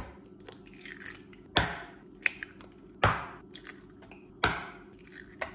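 Raw eggs cracked open one after another: three sharp cracks about a second and a half apart, each with a brief wet spill, and lighter taps in between.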